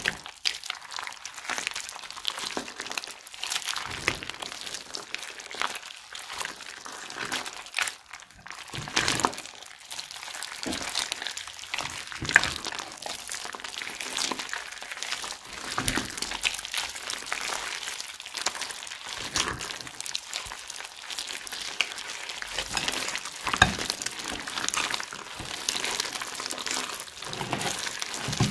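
Crunchy slime mixed with plastic bag pieces and beads being kneaded and squeezed by hand: a continuous crinkling and crackling with sharp crunchy snaps.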